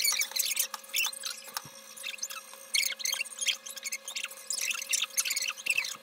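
Sliced bell peppers and onion dropped by hand onto shredded cabbage in a steel pan: irregular crisp rustles and light taps, over a faint steady hum.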